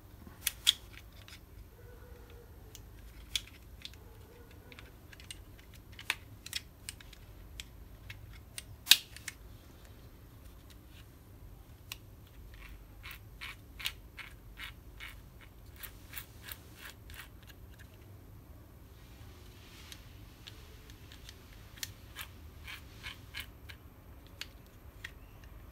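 Small sharp clicks and snaps of the metal levers, spring and plastic housing of a GM Vectra electric door lock being fitted together and worked by hand. The clicks are scattered, loudest about a second in and again about nine seconds in, with quicker runs of clicks later.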